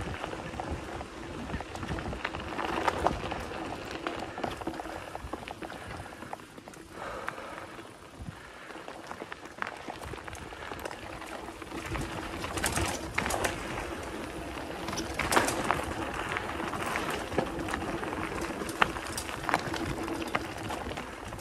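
Specialized Stumpjumper mountain bike riding fast along dirt singletrack: tyres rolling and crunching over dirt, leaves and roots, the bike rattling, with many sharp clicks and knocks and a steady hum. It gets louder and busier in the second half.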